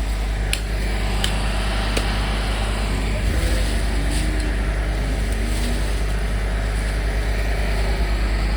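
Motor vehicle running steadily with a low engine rumble, with a few light clicks in the first half.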